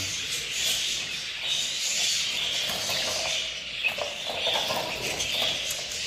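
Budgerigar chattering in a small wire cage, with a few light clicks and rattles as the cage is handled.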